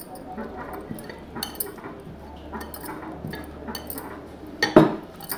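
Hands kneading oiled dough in a glass bowl: soft squishing with repeated light clinks and knocks at irregular intervals, the loudest one about half a second before the end.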